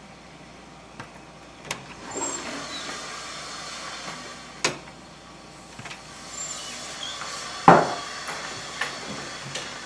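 Scattered clicks and knocks over a steady hiss, about half a dozen in all, with the loudest knock about three-quarters of the way through.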